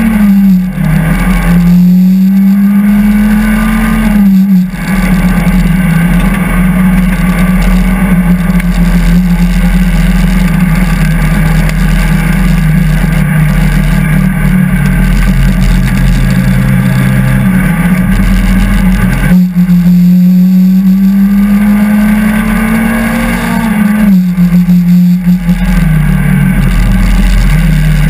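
Peugeot 205 F2000 hill-climb car's engine heard from inside the cabin, driven hard: the revs climb for a few seconds and then drop sharply at upshifts, twice, with a long stretch held at steady high revs and brief lifts off the throttle in between.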